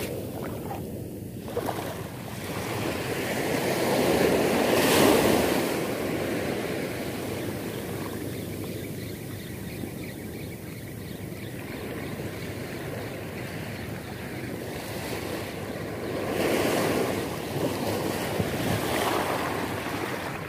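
Shallow surf washing in and out over a sandy beach, foaming around the angler's legs. The wash swells up loudest about four to six seconds in, and again near the end.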